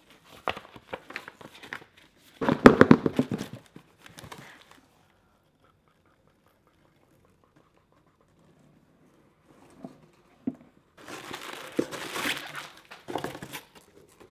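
Paper and cardboard packaging crinkling and rustling as a parcel is unpacked. The crackling comes in bursts, loudest about two to four seconds in, stops for several seconds, then picks up again near the end.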